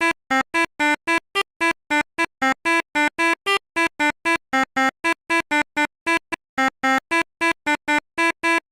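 Bus 'basuri' musical horn of the pianika type playing a quick tune of short, separate notes, about four a second.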